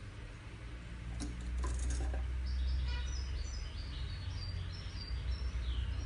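European goldfinch singing: a quick twittering run of short high notes starts about halfway in and ends with a falling slur. Under it runs a steady low rumble, with a few clicks a second or two in.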